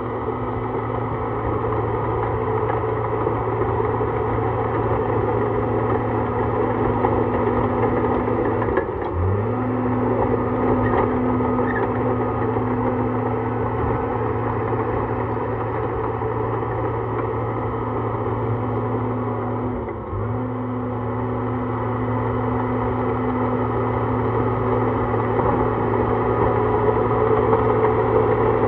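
Bulldozer's diesel engine running steadily under load while the machine pushes dirt and rock. About nine and again about twenty seconds in, the engine note dips sharply for a moment and then recovers.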